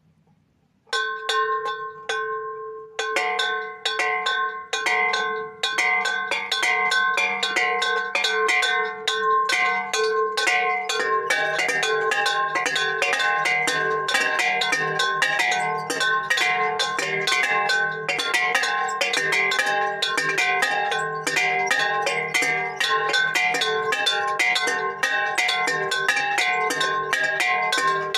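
Three homemade bells, upturned metal pots with clappers on a makeshift belfry, rung by hand in rapid, uneven strokes. One bell starts about a second in, more join about three seconds in, and from about eleven seconds all ring together in a dense, clanging peal.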